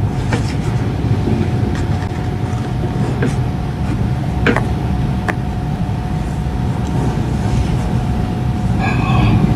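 Steady low rumble with a thin constant whine above it and a few faint clicks, getting slightly louder near the end.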